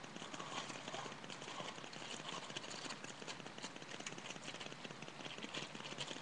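Dry cookie mix being shaken out of a plastic bag into a plastic mixing bowl: a steady hiss of falling powder with many small crinkles and ticks from the handled bag.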